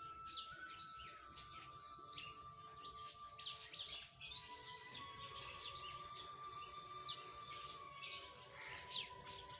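Small birds chirping: many short, quick high-pitched calls scattered throughout, fairly faint. A faint steady high tone runs underneath.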